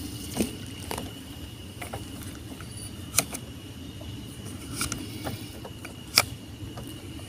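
Spinning rod and reel handled during and after a cast: a few sharp clicks, the loudest about three seconds in and about six seconds in, over a steady low rumble.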